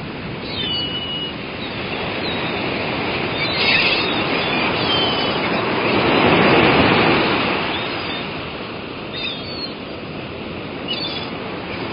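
Surf washing in, one wave swelling and falling away about six to seven seconds in, with a few short seagull calls above it.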